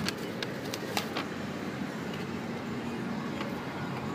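Steady background noise of a car cabin, with a few light clicks and rustles of paperback book pages being turned and handled in the first second or so.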